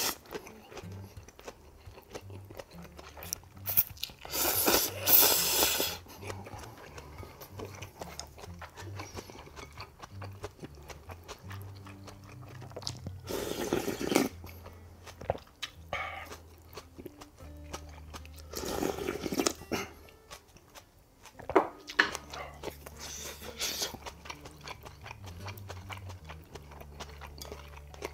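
Slurping tonkotsu ramen noodles and sipping broth from a wooden ladle: about four loud slurps a few seconds apart, with quiet wet chewing between them.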